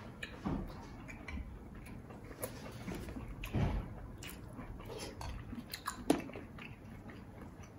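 Eating sounds from a seafood boil: quiet chewing and mouth sounds, with scattered small clicks and cracks of fingers working shellfish in a foil tray.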